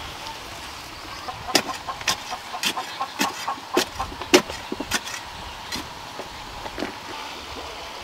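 A series of about a dozen sharp knocks, roughly two to three a second, starting about one and a half seconds in and thinning out after five seconds, over a steady background hiss.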